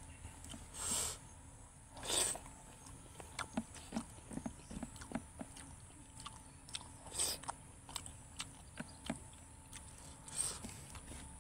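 A person chewing a mouthful of rice and cooked vegetables eaten by hand, with many small wet mouth clicks and smacks. Four louder short hissing sounds are spread through it.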